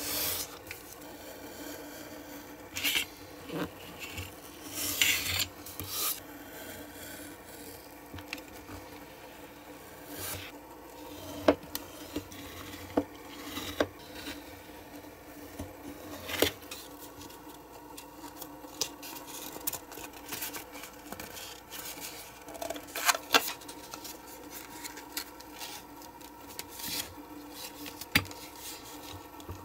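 Craft knife scraping and cutting through glossy cardboard on a cutting mat, then drawn along a metal ruler to crease the card, with sharp clicks and rubbing as the cardboard box is folded by hand. A steady faint hum sits underneath.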